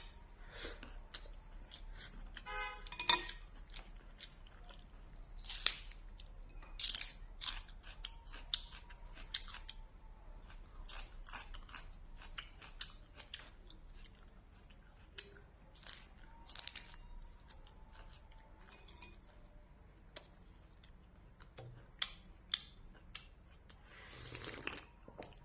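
A person eating at close range: chewing and crunching food, with scattered short clicks and crunches throughout.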